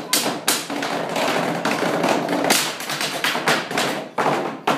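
Live percussion by several performers knocking and slapping on a tabletop: a quick, uneven run of sharp knocks and taps, several a second.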